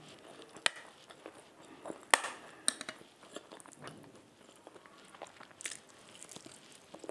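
Close-up eating sounds: a metal spoon clinks sharply against a ceramic plate a few times in the first three seconds, then soft chewing and mouth sounds as food is eaten by hand.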